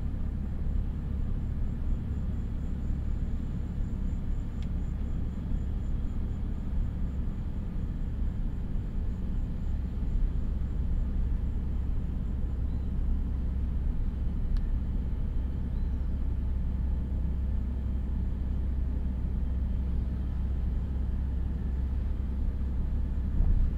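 Steady low rumble of a car driving: tyre and engine noise at an even cruising speed.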